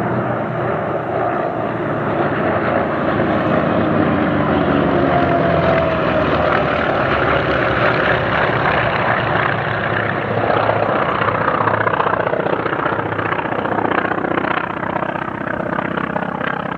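Radial-engined WWII navy piston fighters flying a display pass, the engines running loud and steady, with the engine note dropping in pitch about five seconds in as aircraft go by.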